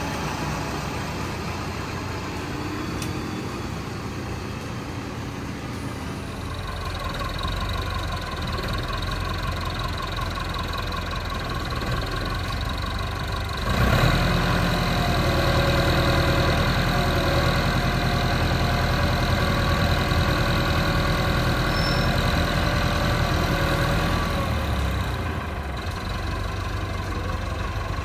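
Landini farm tractor's diesel engine running. About halfway through it revs up louder under load and holds there for about ten seconds as the front loader lifts a plastic-wrapped silage bale, then it drops back toward idle near the end.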